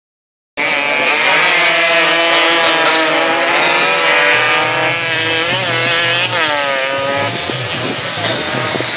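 Racing motorcycle engines running hard as the bikes pass along the track, their pitch rising and falling with throttle and gear changes. The sound cuts in abruptly about half a second in.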